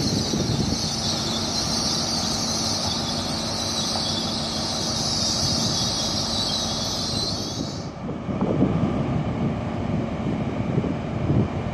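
Wheels of a GWR Class 802 train squealing steadily as it moves along the platform road, over a low rumble from the train. The squeal cuts off suddenly about eight seconds in, leaving a rougher, lower rumble of a train with wind on the microphone.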